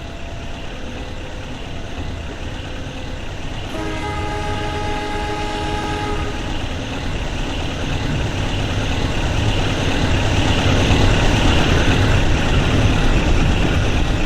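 CC201 diesel-electric locomotive running, its rumble growing steadily louder, with its multi-tone horn sounding once about four seconds in for two or three seconds.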